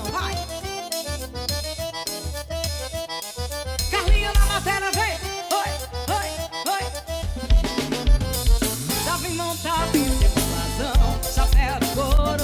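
Forró band playing an instrumental passage: an accordion melody over bass and a drum kit keeping a steady beat.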